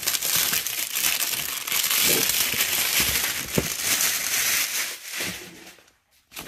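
Thick plastic wrap crinkling and crackling as it is pulled off a cardboard display box by hand, dying away about five seconds in.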